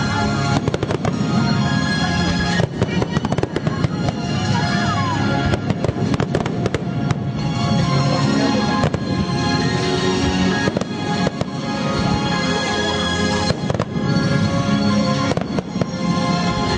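Fireworks going off in many rapid bangs and crackles, with music playing at the same time.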